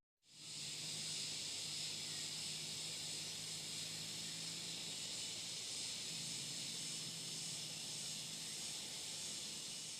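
Steady chorus of insects, a high even hiss, with a faint low hum underneath.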